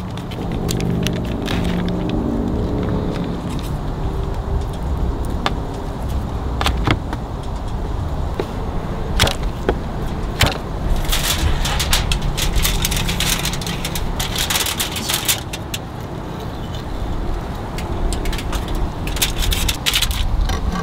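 Crinkling plastic food packaging, a few sharp knocks of a knife on a plastic cutting board, and rustling aluminium foil near the end, over a steady low rumble.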